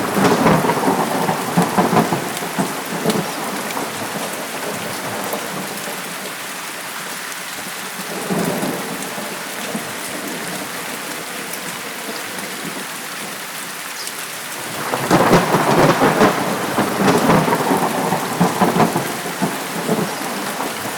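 Thunderstorm: steady rain with rolling thunder. A rumble fades over the first few seconds, a short one comes about eight seconds in, and a longer, louder roll of thunder sets in about fifteen seconds in and runs on.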